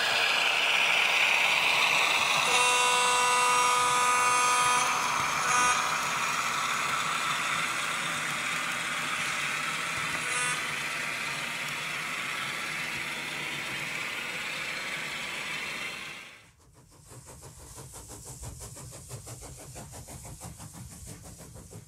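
Sound decoder of an N scale E5A diesel model locomotive playing its air horn, a blast of about two seconds and then two short toots, over a steady hiss of running sound. The sound drops away suddenly about three quarters of the way through, leaving a faint low hum.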